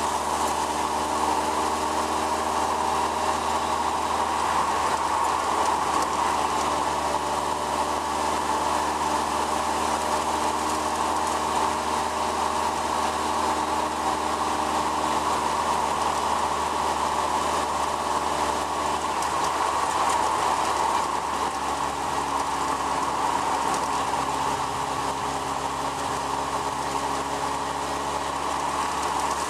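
Lightweight open-wheeled sports car driving at a steady road speed: its engine runs under wind and road noise, and the engine note drops about two-thirds of the way through.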